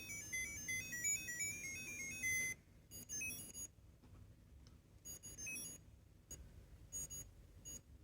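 Electronic sound-chip toy playing a quick melody of beeping notes through a tiny speaker, stopping about two and a half seconds in, followed by a few shorter snatches of the same beeps and single blips.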